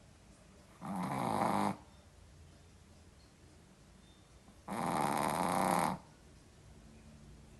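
A sleeping dog snoring: two loud snores about four seconds apart, the second a little longer, with quiet breathing between them.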